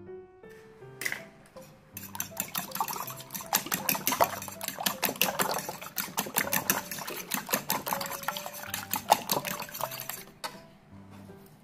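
Fork beating raw eggs in a bowl: a fast, continuous run of metal clicks against the bowl with wet sloshing. It starts about two seconds in and stops shortly before the end.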